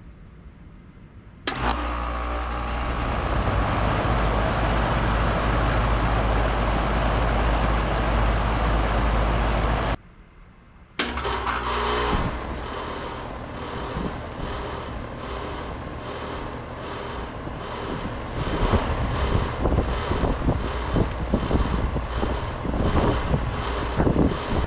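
An outdoor central air-conditioner condenser starts abruptly about a second and a half in and runs with a steady low compressor hum under the rush of its fan. After a short break near the middle, another condenser unit is heard running with the same kind of fan and compressor noise.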